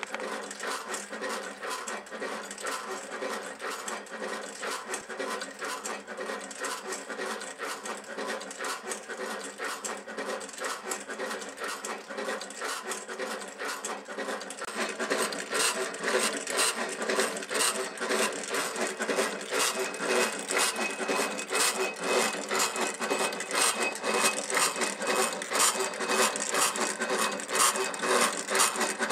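Motorised kinetic sculpture made of steel kitchen hardware running, its metal parts clicking and rubbing in a rapid, continuous mechanical rhythm. It gets louder about halfway through.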